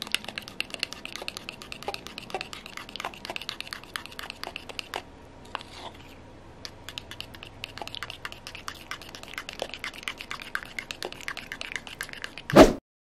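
Metal palette knife stirring and scraping thick lavender paint in a small cup: a run of irregular small clicks and scrapes, with a brief lull midway and one louder knock near the end.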